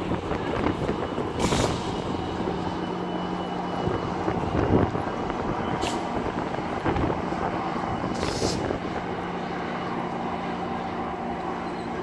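GO Transit diesel locomotive and bilevel coaches rolling past, with a steady low engine hum over the rumble of wheels on rail. Two short hisses come about a second and a half in and again near the end.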